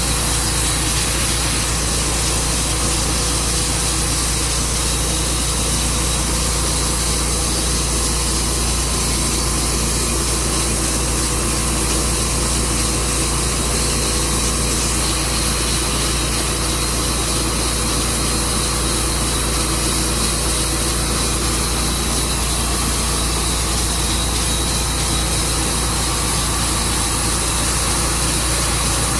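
A sawmill's engine runs steadily under load as the blade cuts through a walnut log.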